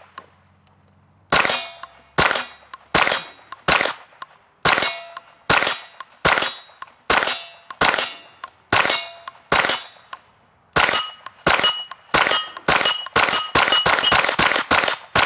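Suppressed 9mm shots from a Grand Power Stribog SP9A3G roller-delayed pistol firing 124-grain supersonic rounds through a Witt Machine can. About a dozen shots come a little under a second apart, then a quicker string near the end. Steel plate targets ring after hits.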